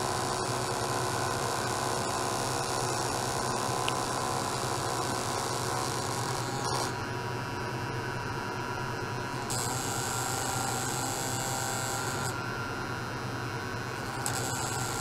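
Electrically driven ultrasonic test setup giving a steady electrical hum and buzz with hiss. A higher hiss cuts out and comes back every two or three seconds.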